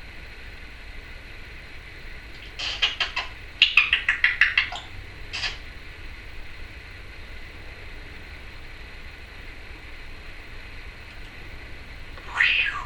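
Timneh African grey parrot making two quick runs of clicking, chattering pulses a few seconds in, then one short call that slides down in pitch near the end.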